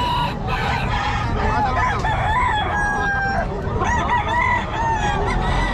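Many roosters (gamecocks) crowing from all sides, their long calls overlapping one another without a break.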